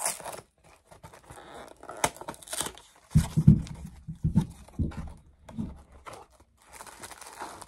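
Cardboard Pop-Tarts box being torn open at its tab and handled: a run of irregular ripping, scraping and crinkling, with a few duller knocks about three to five seconds in.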